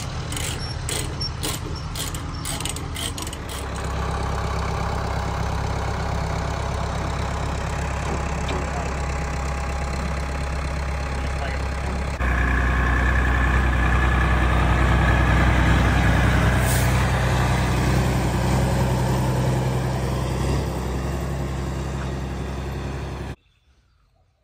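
A truck engine runs steadily, with a quick run of sharp metallic clicks in the first few seconds while the tie-down chain is worked. About twelve seconds in, a louder engine takes over: the 1978 Bedford M 4x4's six-cylinder petrol engine running as the truck moves under its own power. It cuts off abruptly near the end.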